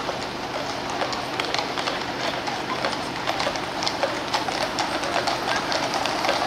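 Hooves of a column of cavalry horses clip-clopping on the road at a walk, many irregular strikes that grow more frequent as the horses come closer, over a steady low hum of traffic.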